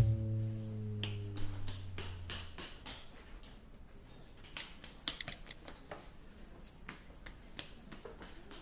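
A held low musical note or chord fades out over the first two seconds or so, followed by faint, scattered clicks and taps at irregular intervals.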